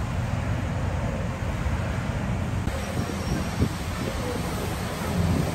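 Lifted Nissan Titan pickup's 5.6-litre V8 running at low speed, a steady low rumble as the truck sits and creeps in the car wash bay.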